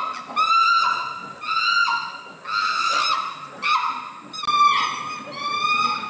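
Chimpanzee screaming: a run of high-pitched calls, roughly one a second, each held briefly and then dropping in pitch.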